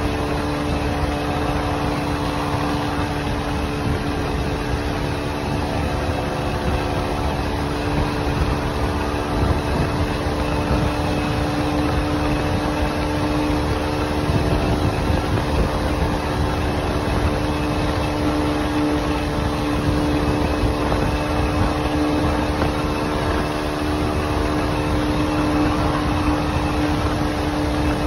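Motorcycle engine running steadily at cruising speed, its even note holding without revving up or down, over a steady rush of road and wind noise.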